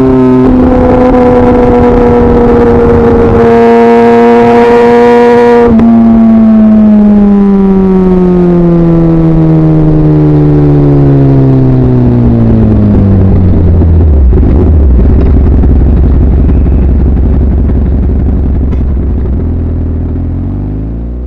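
Kawasaki ZX-10R's inline-four engine held at steady high revs, then winding down smoothly as the bike slows from about six seconds in, settling to a low idle about fourteen seconds in and fading out near the end.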